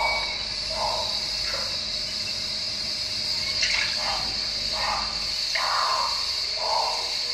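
Steady high chirring of a cricket chorus in a nature soundscape, with soft irregular lower sounds about once a second and a brief high tone at the very start.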